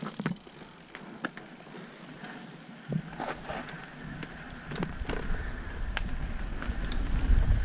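Mountain bike rolling along a dirt trail: scattered clicks and knocks from the bike over the ground, with a low rumble coming in about three seconds in and growing louder toward the end.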